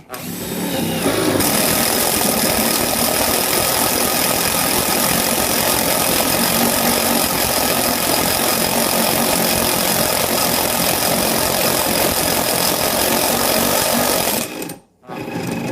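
Cordless impact driver with a 1/2-inch spade bit held in a keyless chuck adapter, boring into the edge of a 2x8 wooden board. It runs loud and steady for about fourteen seconds, building up over the first second or so, then stops near the end.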